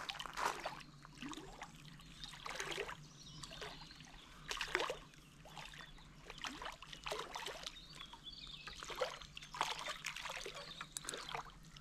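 A hooked common carp splashing and swirling at the surface of the lake as it is played in close to the bank, in irregular bursts of splashing.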